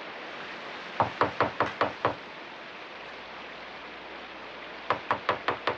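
Knocking on a door: two quick runs of about six knocks each, a few seconds apart, over a steady hiss of rain.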